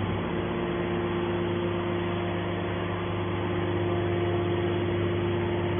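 Hydraulic scrap metal baler's motor and pump running with a steady hum.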